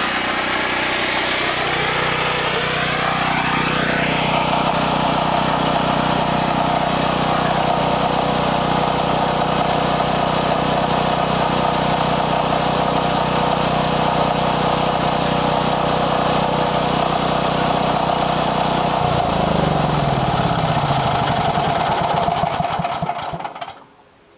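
Generac home standby generator's engine running loud and steady. Near the end its pitch falls and it winds down as the engine shuts off.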